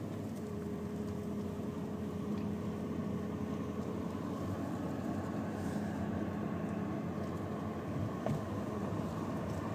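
Golf cart driving along a paved cart path: a steady hum with road and rattle noise, and a small knock about eight seconds in.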